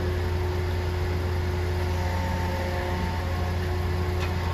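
Grapple-crane recycling truck's engine running with a steady low hum, while its hydraulic crane swings the grapple boom out. A few steady higher tones ride over the drone.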